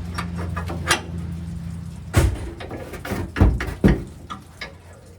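Tools and steel hitch parts being handled under a truck bed: several sharp knocks and clanks, the loudest about two, three and a half and four seconds in, over a steady low hum that fades out near the end.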